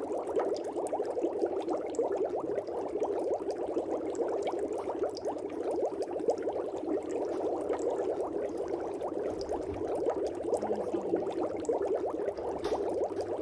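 Dry ice fizzing: a dense, steady crackle of tiny rapid pops.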